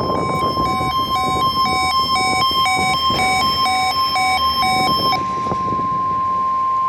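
NOAA Weather Radio alert tone: a steady, loud, high single tone that cuts off abruptly at the end. For most of its length a second alarm beeps over it, two notes alternating about twice a second, and stops about five seconds in. A rough, noisy hiss runs underneath.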